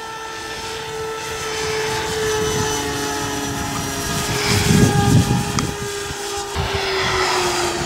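Electric RC plane flying by: the Park 480 brushless motor spinning a three-blade 10×5 propeller gives a steady buzzing drone whose pitch sags slightly near the end. A low buffeting rumble on the microphone swells about halfway through.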